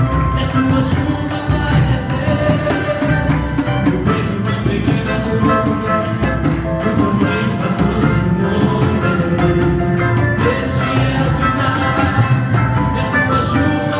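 Live samba-gospel band music playing loudly, with fast, steady percussion under guitar and other pitched instruments.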